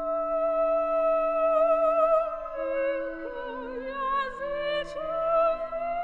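Contemporary spectral orchestral music in a thin texture: a soprano voice blended with clarinet holds long notes with vibrato over quiet sustained strings. About halfway through, a lower line steps down through several held notes, and there is a light high percussion tap near the end.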